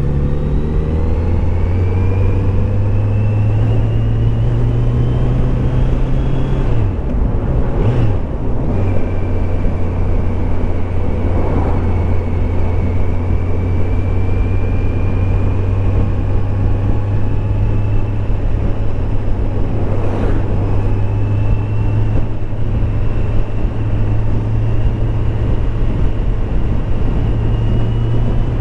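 Kawasaki Z900 SE's inline-four engine running at steady revs while under way, with a brief drop in the engine note about seven seconds in before it picks up again.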